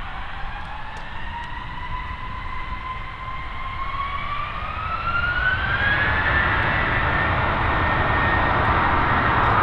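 The twin CFM56 turbofans of an Airbus A321-200 spooling up as thrust is applied for departure. A whine rises in pitch over the first six seconds and then holds steady, while the jet roar grows clearly louder.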